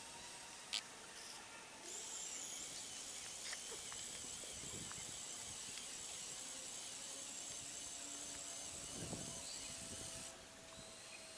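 Small electric motors of a LEGO Technic RC multi-axle vehicle whining as it drives along, starting about two seconds in and cutting off near the end. A single sharp click comes just before the motors start.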